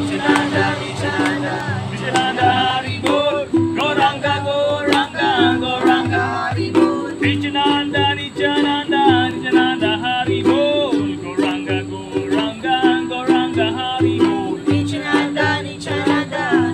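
Kirtan music: voices chanting a devotional mantra over a strummed string instrument, with a repeating low note pattern keeping a steady beat.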